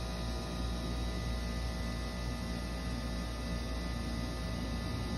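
A steady low hum with several faint, unchanging tones above it.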